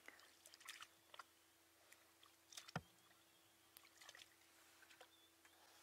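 Near silence with faint, scattered clicks from a spotted hyena feeding at a buffalo carcass, and one sharper click nearly three seconds in, over a faint steady hum.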